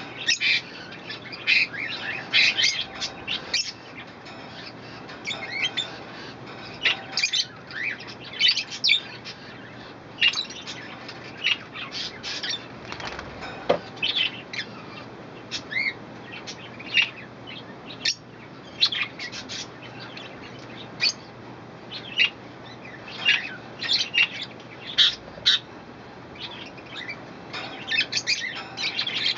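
Pet budgerigars chirping and chattering: many short, high calls coming in clusters all through, with brief gaps between them.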